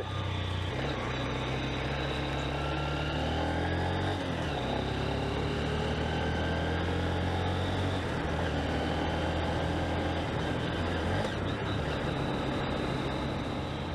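Engine of a Honda CB125F motorcycle, a 125 cc single-cylinder four-stroke, heard from the rider's seat while riding. The engine note climbs and then drops about four seconds in, and shifts again later.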